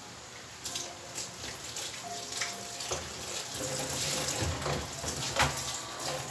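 Water running, with scattered clinks and knocks; it starts less than a second in and grows louder toward the middle.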